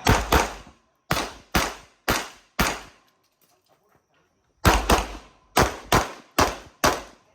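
Rapid handgun fire from a Tanfoglio pistol: six quick shots, a pause of about two seconds, then six more quick shots.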